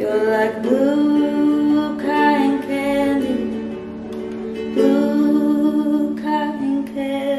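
A woman singing long held notes, with a slide in pitch here and there, over acoustic guitar.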